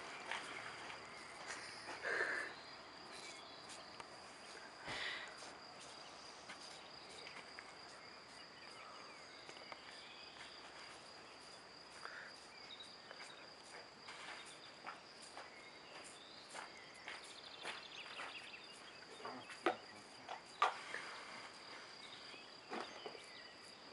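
A cat licking ice cream off a stick: faint, irregular wet lapping clicks, with a few louder ones about two-thirds of the way through and near the end. A steady high-pitched whine runs beneath them.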